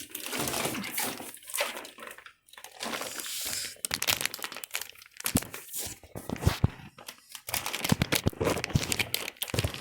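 Plastic fish-shipping bags crinkling and rustling as they are handled, in irregular bursts of crackle.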